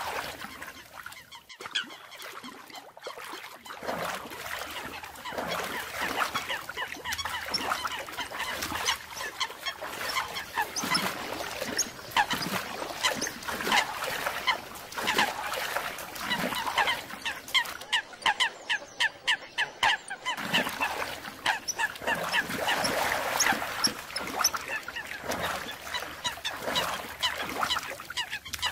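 American coots calling: a dense run of short, repeated honking and clucking notes from several birds at once, the aggressive calls coots give when fighting.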